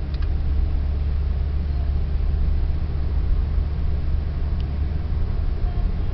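Steady low rumble of a car driving along a paved road, engine and tyre noise heard from inside the cabin.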